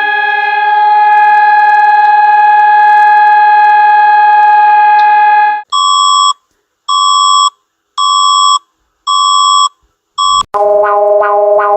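Emergency warning alarms: a steady, held siren tone cuts off about halfway through. Four short electronic alarm beeps follow, about a second apart, with a fifth cut short. Near the end a new, rapidly pulsing alert tone starts with a click.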